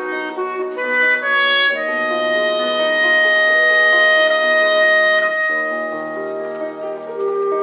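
Chamber trio of clarinet, basset horn and piano playing classical music: a few moving notes, then a long held chord in the winds for about three seconds before the harmony changes.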